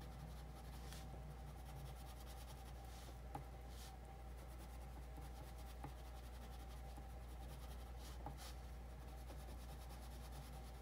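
Pink Crayola wax crayon rubbing back and forth on paper as an area is coloured in: faint scratchy strokes. A steady low hum sits underneath.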